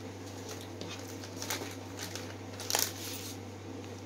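Plastic snack wrapper crinkling and paper rustling as a packet is handled and picked open, in short scattered crackles with a louder one about three seconds in, over a steady low hum.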